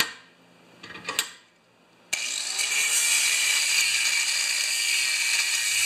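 Angle grinder disc grinding into a steel part clamped in a vise: a loud, steady, harsh hiss that starts suddenly about two seconds in, after a near-quiet stretch with one brief noise.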